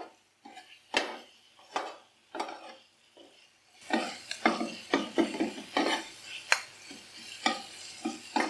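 A spoon stirring and scraping onion, tomato and spice masala in hot oil in a tawa-style karahi, the oil sizzling. The strokes are spaced out at first; about four seconds in, the sizzle becomes steady and louder under quicker strokes.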